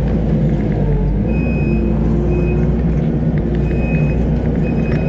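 Kubota SVL90-2 compact track loader's diesel engine running steadily under load, with several short high beeps from its backup alarm as it reverses.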